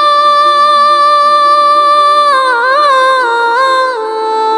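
A high solo voice singing a Bengali gojol, holding a long steady note, then a wavering melismatic run about halfway through that settles onto a lower held note near the end, over a soft low hummed backing.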